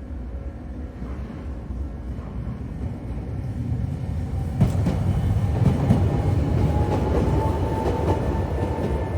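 Tokyo Sakura Tram streetcar running over the level crossing. The low rumble of its wheels on the rails grows louder about halfway in, and a thin whine rises slightly in pitch.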